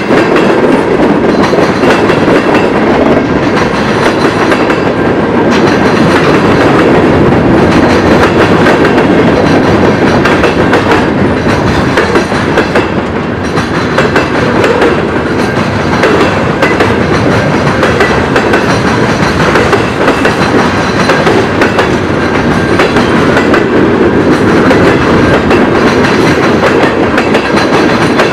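CN freight train's tank cars and boxcars rolling past close by: steady noise of steel wheels on rail, with a rapid clickety-clack of wheels over the rail joints.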